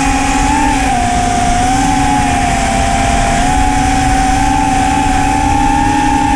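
Small 3-inch FPV quadcopter's motors (iFlight Xing 1408 3600kv) spinning HQ 3-inch tri-blade propellers, a steady whine whose pitch wavers slightly as the throttle shifts. Wind rumble buffets the onboard camera's microphone underneath.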